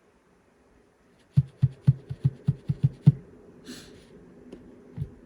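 A quick run of about nine finger taps on the Icom IC-7300's front-panel touchscreen and buttons while the date is being set, then a short rustle and one more tap near the end.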